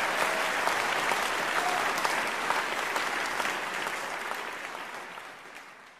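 Audience applause and cheering, with a few short whistles near the start, fading out steadily over the last couple of seconds as the end of a live song recording.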